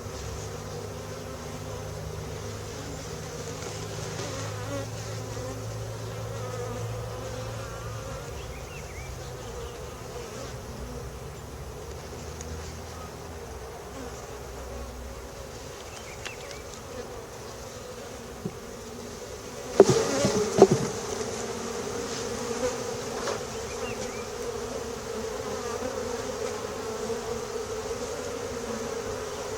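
A honeybee colony buzzing steadily at an open hive. A few sharp knocks come about two-thirds of the way in.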